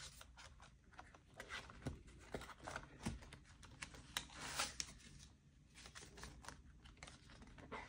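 Faint rustling and soft clicks of paper banknotes being handled and slid into a cash envelope, a little louder about halfway through.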